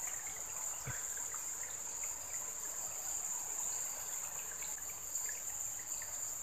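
Steady high-pitched insect chorus, like crickets, with water trickling in a small ditch.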